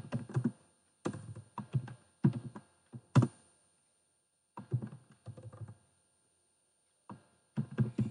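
Typing on a computer keyboard: several quick runs of keystrokes separated by pauses of about a second.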